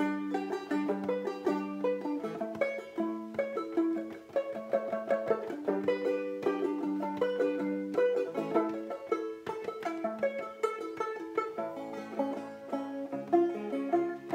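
Banjo played solo: a steady run of quickly picked chords and melody notes in a lively, even rhythm.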